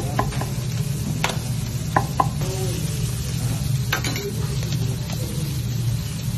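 A large knife knocks sharply on a wooden cutting board, about five times, as grilled kokoreç is sliced and chopped. Under the knocks are a steady low hum and a sizzling haze.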